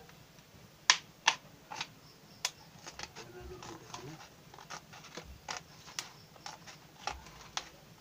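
Scissors cutting a thin plastic bottle: a string of sharp snips and plastic clicks at uneven intervals, loudest about a second in.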